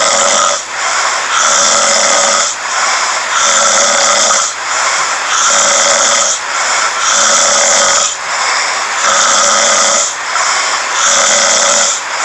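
A man snoring loudly in his sleep, in a steady rhythm of about one snore a second with only short gaps between them.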